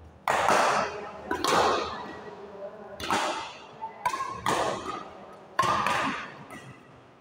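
Badminton rackets striking a shuttlecock in a doubles rally: about five sharp hits a second or so apart, each echoing in the big hall.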